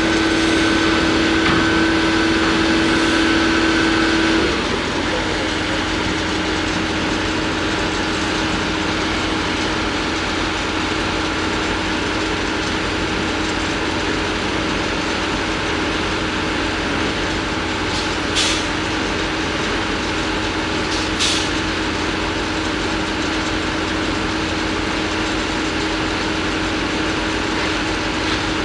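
Heavy diesel engine of a crane on a barge running steadily while it holds a steel sheet pile being lined up, a steady hum that eases slightly about four seconds in. Two short knocks sound later on.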